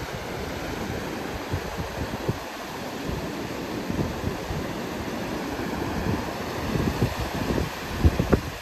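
Gusty wind buffeting the microphone over the steady wash of North Sea surf, with a couple of harder gusts near the end.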